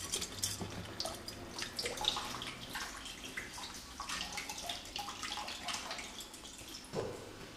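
Water running from a kitchen tap and splashing as dishes are rinsed in a sink, with scattered drips and small knocks throughout. A soft thump sounds about seven seconds in.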